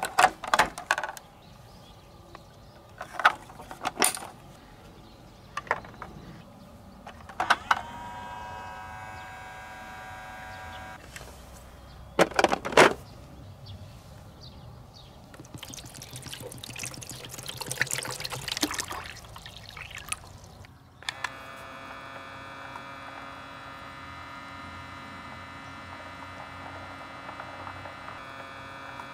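Batteries clicking and knocking into the plastic battery compartment of a somen nagashi machine, and its small electric motor humming briefly. Water poured from a plastic bottle into the tray, then, about 21 s in, the battery-powered motor starts and hums steadily as it spins the water around the tray.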